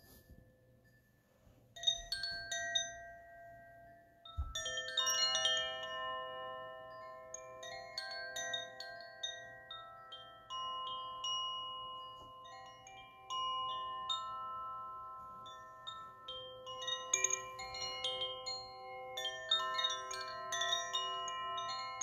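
Hanging Koshi-style wooden-cylinder chimes ringing as their sails swing, striking many bright, sustained, overlapping tones. It is nearly silent for the first two seconds, a few notes sound about two seconds in, and a fuller flurry starts about four and a half seconds in and goes on in waves.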